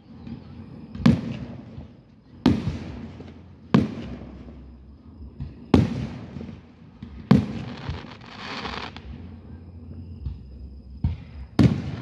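Aerial fireworks shells bursting: about six sharp booms, one to two seconds apart, each trailing off in a rolling echo. There is a longer gap before the last boom, and a brief hissing fizz about eight seconds in.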